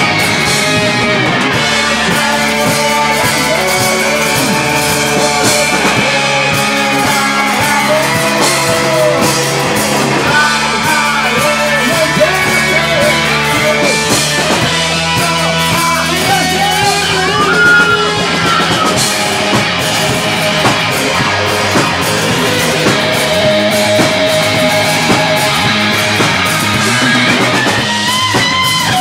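A live rock band playing loud and continuously, with electric guitar, bass and drum kit, and pitch-bending melodic lines over a steady low end.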